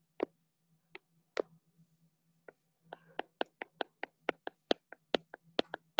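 Quick taps on a tablet's touchscreen while painting with an airbrush tool: a few scattered taps, then from about halfway a fast run of about five taps a second.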